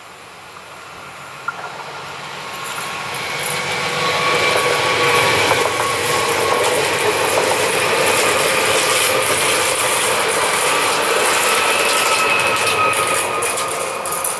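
Two coupled PESA Elf 2 electric multiple units passing on a curve. Their wheel-on-rail noise grows louder over the first few seconds, holds loud with a few steady whining tones while the cars go by, and eases off near the end.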